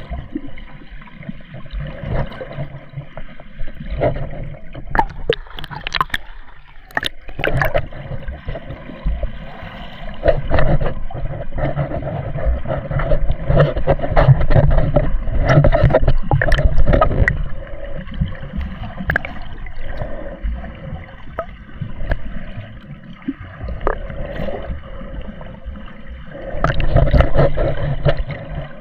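Sea water sloshing and gurgling as swimmers move through it while snorkelling, muffled, with irregular surging rumbles and a cluster of sharp splashes or knocks about six to seven seconds in.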